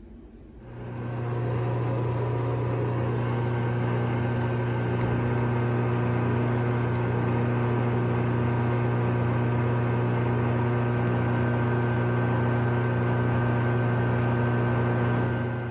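Small hobby lathe's electric motor starting up, coming up to speed over about a second, running at a steady pitch with a loud low hum, and switching off at the end.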